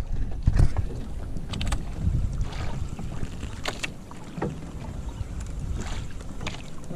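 Water washing against the hull of a small wooden outrigger boat, with wind buffeting the microphone and a few light knocks and clicks scattered through.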